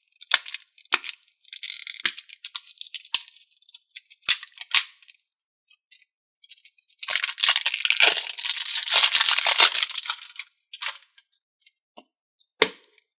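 Hands handling a slime toy and its plastic container: scattered clicks and crackles, then about three seconds of dense crinkling rustle starting some seven seconds in, and a few more clicks near the end.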